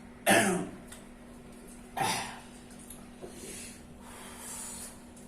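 A man's two loud, breathy throat-and-breath outbursts, the first just after the start and the second about two seconds in, each dropping in pitch. They are a reaction to the sharp burn of raw garlic just eaten.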